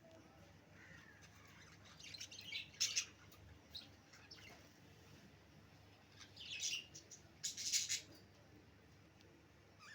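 Budgerigars chirping and chattering in short bursts, the loudest about three seconds in and again about seven to eight seconds in.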